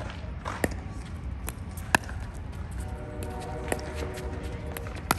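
Pickleball rally: paddles striking the hard plastic ball in sharp, hollow pops at irregular intervals, about six in all, the loudest about two seconds in.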